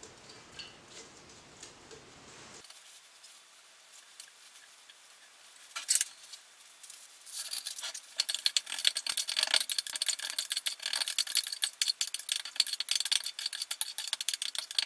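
A metal spoon stirring ammonium chloride into water in a glass beaker, clinking and scraping rapidly against the glass from about seven seconds in, after a single sharp clink about six seconds in. The clinking is the salt being dissolved.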